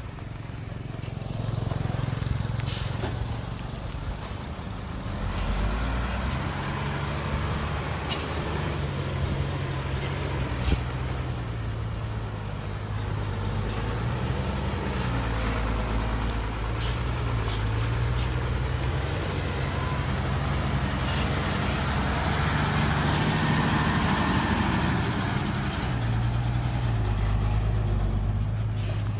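Heavy diesel engine running continuously, its pitch shifting up and down as the revs change, with a few sharp clicks.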